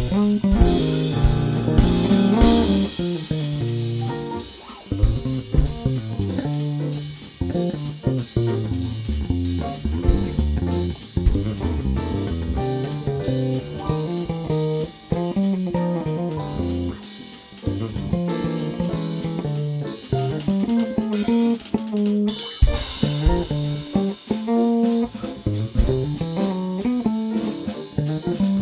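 Instrumental band music: guitar lines over bass guitar and drum kit, in a bluesy, jazz-leaning style. A sharp hit about three-quarters of the way through is followed by a fuller, brighter passage.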